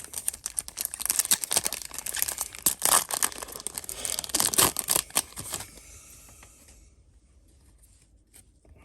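Yu-Gi-Oh! booster pack's foil wrapper being torn open and crinkled in the hands, a dense run of crackling and ripping that stops about five and a half seconds in.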